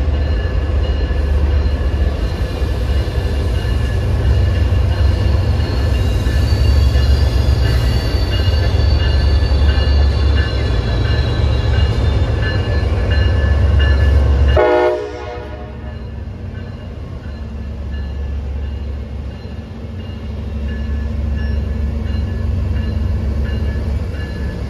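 MBTA commuter rail diesel locomotive passing close while hauling a train of bilevel coaches: a loud low engine drone with a steady whine over it. About fifteen seconds in, a brief stacked tone sounds and the noise drops off suddenly, leaving the quieter rumble of the coaches rolling by.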